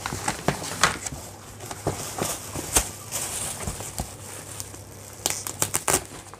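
Cardboard packaging being torn open and plastic wrapping crinkling as hands pull out wheel covers: irregular crackles and rustles with several sharp snaps.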